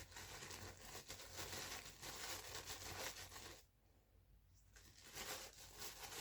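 Faint tearing and crinkling of toy packaging handled and opened by hand. The rustling is made of many small crackles and drops away for about a second just past the middle.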